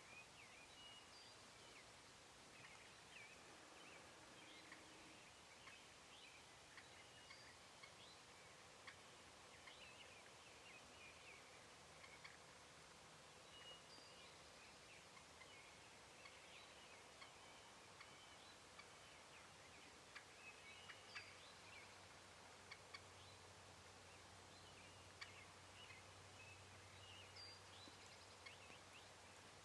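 Near silence in the woods, with faint, scattered distant bird calls and small chirps.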